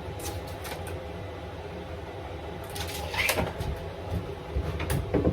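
Tape measure and pencil handled on a chipboard board while it is measured and marked: a few light knocks and clicks, a short scrape about three seconds in, and more knocks near the end, over a steady low hum.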